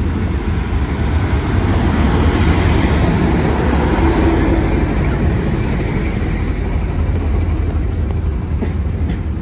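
Class 31 diesel locomotive, powered by an English Electric V12, running past close by as it hauls a passenger train into the station. It is loudest about two to five seconds in as the locomotive goes by. The coaches' wheels then rumble past on the rails.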